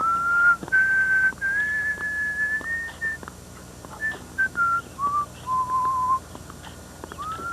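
A person whistling a slow tune: it opens with an upward slide into long held notes, steps lower about halfway through, breaks off briefly and starts again with another upward slide near the end.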